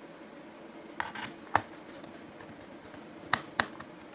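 A few sharp metallic clicks and taps: a Phillips screwdriver and small screws knocking against the aluminium bottom case of a unibody MacBook Pro as its cover screws are started. The clicks come in two small groups, about a second in and a little after three seconds.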